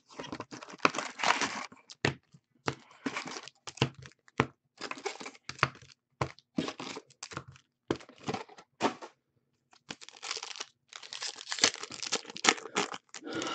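Foil trading-card pack wrappers crinkling as packs are handled and stacked, then one being torn open near the end, in irregular short bursts.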